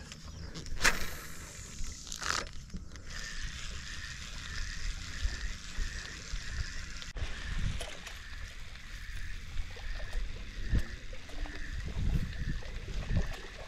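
Water sloshing and lapping around a small fishing boat, with two short sharp swishes about one and two seconds in, then a steady hiss with a faint, evenly repeating pulse.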